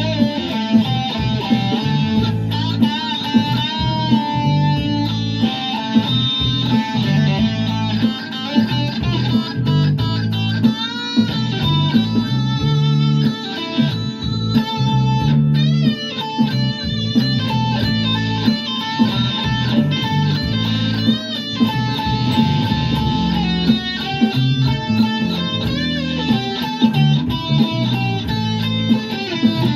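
Les Paul-style electric guitar playing a lead line, with bent and wavering notes over steady low notes.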